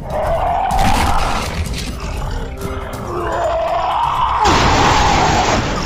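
Two long, rough monster roars voiced for a CGI Hulk, the second longer and louder, over background music.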